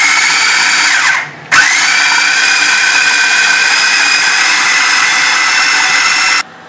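Electric food processor motor running at speed, grinding beef mince with onion, green chillies and spices into kabab mixture. It winds down and stops about a second in, starts again with a rising whine, and cuts off suddenly near the end.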